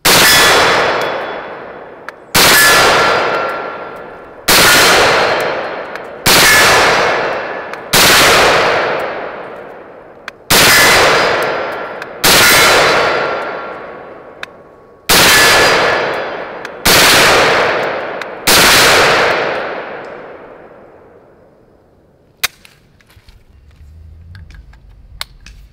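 Ten single shots from an M1 carbine in .30 Carbine, fired at a slow aimed pace about two seconds apart. Each report trails off over about two seconds with a ringing tone in the tail. After the last shot come a couple of faint clicks.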